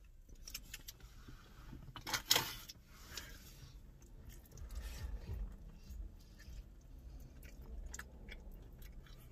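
A person chewing an unbreaded hot honey chicken wing with small wet mouth clicks and a louder smack about two seconds in.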